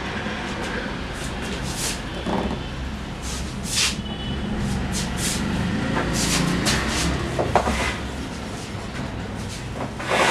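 Hair-cutting scissors snipping through wet hair in scattered single snips, about a dozen, over a steady low hum.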